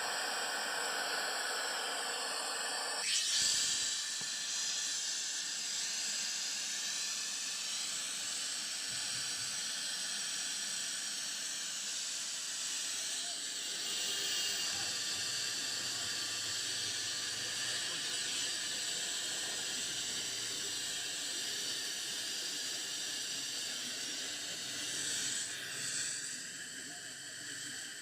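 Steady hiss with faint high-pitched whistling lines running through it. It changes in character about three seconds in and swells briefly near the end.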